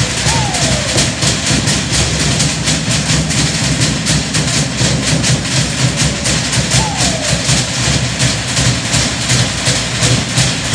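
Fast, steady drumming at about five beats a second, with a short falling tone heard twice.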